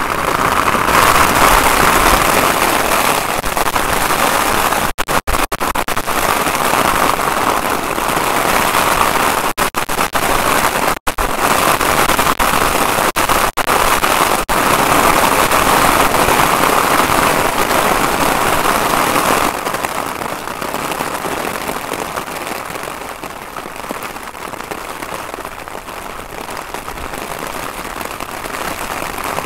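Heavy rain pouring down in a storm: a loud, steady hiss of downpour with crackling drops, cutting out briefly a few times. About two-thirds of the way through it falls to a softer hiss.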